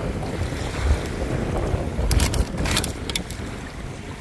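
Wind buffeting the microphone, with a cluster of sharp clicks about two to three seconds in.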